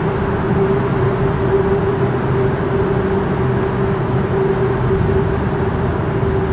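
Road and engine noise inside a vehicle's cabin while it drives through a highway tunnel: a steady rumble with a constant hum.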